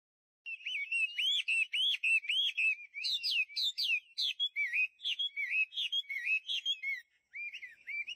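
Birdsong: a bird sings a quick, unbroken run of arching chirps that rise and fall in pitch. It starts about half a second in and pauses briefly near the end.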